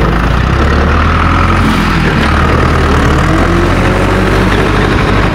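Heavy diesel engine sound effect, as for an excavator, running steadily with a deep low hum.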